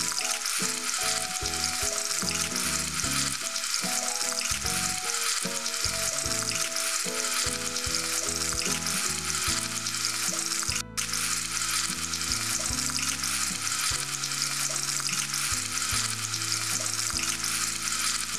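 Raw potato fries sizzling steadily in hot olive oil in an iron wok, the first fry of a double fry. The sizzle drops out briefly about eleven seconds in.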